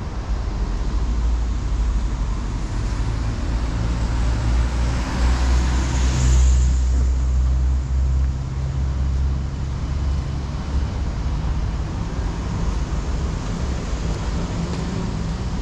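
Outdoor roadside ambience with a steady low rumble, and a vehicle passing by, its hiss swelling to a peak about six seconds in and then fading away.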